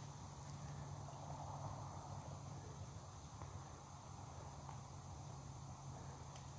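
Faint outdoor ambience with a steady high insect drone and a low steady hum underneath; a tiny click near the end.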